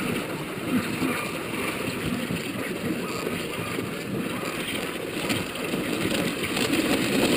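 Dog sled moving along a snow trail behind a husky team: a steady hiss of the runners sliding over packed snow, mixed with wind on the microphone.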